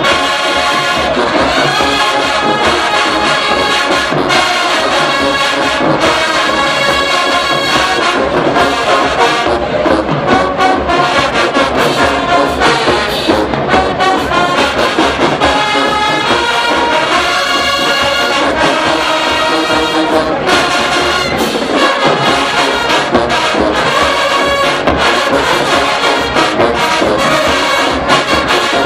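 HBCU marching band playing loud brass music over a regular drum beat, without a break.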